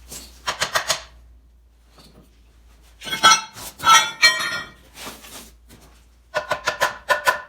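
Hammer tapping a heated steel ring gear down onto a flywheel to seat it: rapid, evenly spaced metal strikes with a ringing tone. There is a pause, then a few irregular ringing blows, and a fast run of taps starts again near the end.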